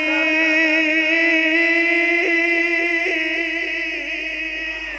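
A man's voice chanting in melodic recitation, holding one long note with a slight waver that fades near the end.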